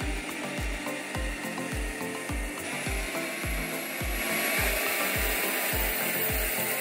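Background music with a steady kick-drum beat, about two beats a second, over the whine of a cordless vacuum cleaner's motor.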